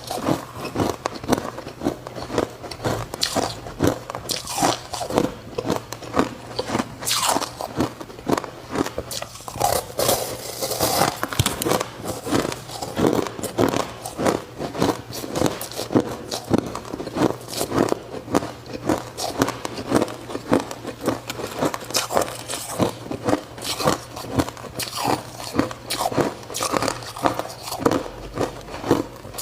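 Ice being bitten and chewed close to the microphone: fast, repeated crunching and cracking, several crunches a second without pause.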